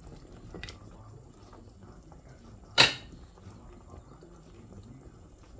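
Pot of vegetable soup simmering faintly on the stove, a soft bubbling with the odd drip. One sharp click nearly three seconds in.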